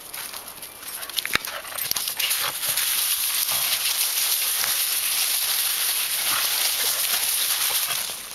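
Two dogs play-fighting and chasing over dry leaves and pine straw: scuffling with a few sharp clicks at first, then a steady loud rustling in the leaves for most of the time.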